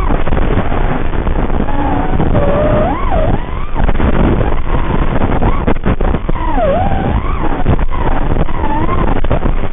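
Racing quadcopter's brushless motors spinning Gemfan Hurricane propellers, a whine that sweeps up and down in pitch as the throttle changes through turns. It has a narrow, lo-fi quality from the onboard FPV audio, with a couple of brief dropouts.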